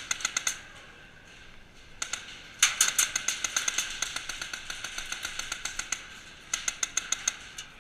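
Airsoft guns firing in rapid full-auto bursts: a short burst at the start, a long run of shots lasting over three seconds from about two and a half seconds in, and another short burst near the end.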